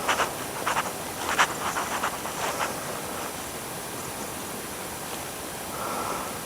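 Steady wind rushing on the microphone outdoors, with a handful of footsteps in the first couple of seconds.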